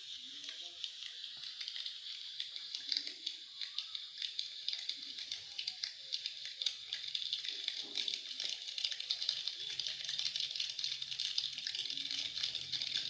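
Imitation rain made with a fingertip: a dense patter of tiny taps and rubs like raindrops, growing thicker and louder toward the end.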